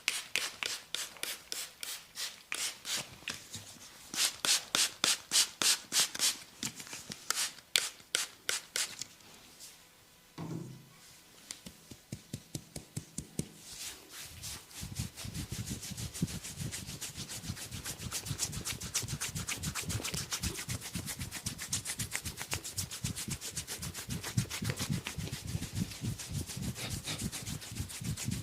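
Hands rubbing and scratching rhythmically in a massage, at about three strokes a second at first. From about halfway the strokes turn faster and fuller.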